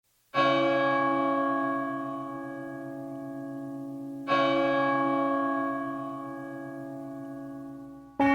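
A deep bell struck twice, about four seconds apart, each stroke ringing on and slowly fading away. Music comes in right at the end.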